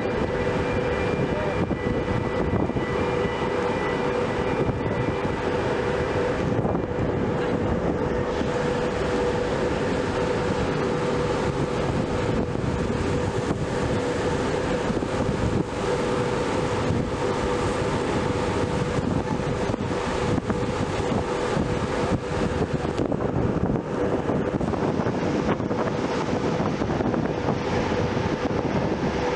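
Steady drone of a car ferry's engines and machinery with a constant hum, heard from the open deck with wind on the microphone, as the ship pulls away from its berth. A faint high whine fades out in the first few seconds.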